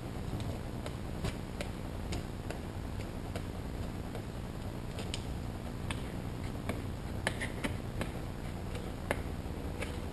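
Irregular light clicks and small taps as water is squeezed out from under dark window-tint film laid on a plastic headlight lens cover, over a steady low hum.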